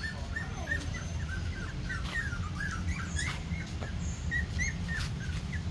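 Young puppies squeaking and whimpering: a rapid series of short, high-pitched squeaks, several a second, over a steady low rumble.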